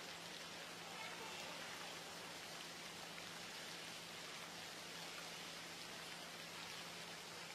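Steady, faint hiss of water, like rain falling on a surface, with a low hum underneath; no splash of a dive entry stands out.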